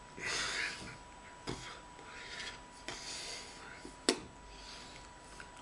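Breathy puffs and soft rubbing from a person gesturing with his hands near his face and body, with a few sharp clicks, the loudest about four seconds in.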